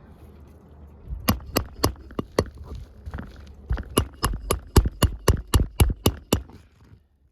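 Hammer driving roofing nails into asphalt shingles: four blows, a short pause, then a quick run of about ten strikes at roughly four a second.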